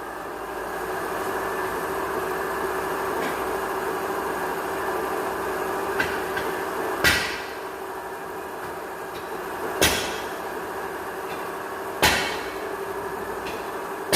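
Metal parts and tools knocking together in sharp clanks, about five times, over a steady machine hum with one held tone.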